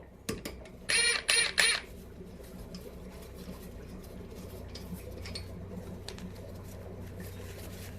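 HiKOKI WR36DB cordless impact wrench triggered in three short bursts about a second in, run in its lowest power mode (mode 1) to loosen a nut. A low steady hum follows.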